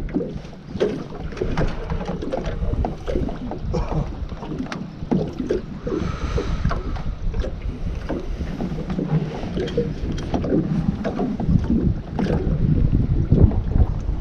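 Wind buffeting the microphone over water slapping against a small fishing boat's hull, with scattered small knocks and clicks throughout.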